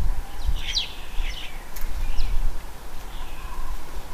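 Starlings calling: a few short, high chirps and squeaks scattered through, over a low background rumble that is strongest at the start.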